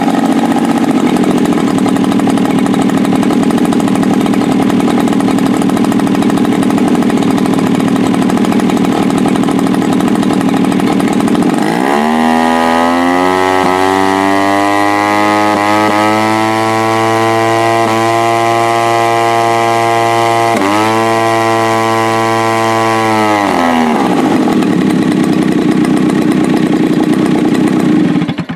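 Sachs Dolmar 3.7 (61 cc) single-cylinder two-stroke gas engine on a one-third-scale model airplane, running with its cowling on. It idles, is throttled up about twelve seconds in to a steady high-pitched run with a brief dip a little after twenty seconds, then drops back to idle a few seconds later. It cuts off at the end.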